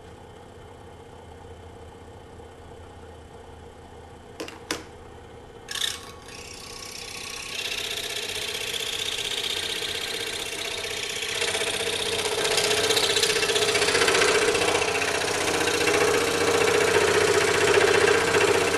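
DeWalt scroll saw fitted with a number 5 blade: two sharp clicks, then the saw starts about six seconds in and runs steadily, cutting through thick wood. The cutting grows louder in steps, at about eight seconds and again at about twelve.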